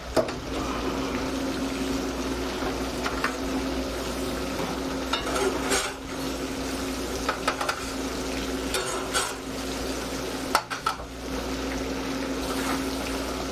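Metal tongs and a metal baking tray clinking and scraping now and then as smoked Cornish game hens are lifted off a pellet smoker's grate, over a steady hum.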